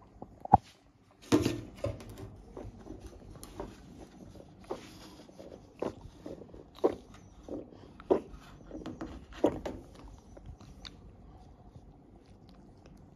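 A cat coming round from anesthesia after spaying, retching and bringing up liquid into a plastic kidney dish, in a run of short, irregular gagging heaves. There is a sharp knock about half a second in.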